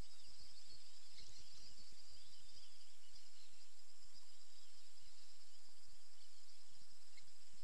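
A steady, high insect chorus, with soft irregular low thumps of water lapping close to the camera.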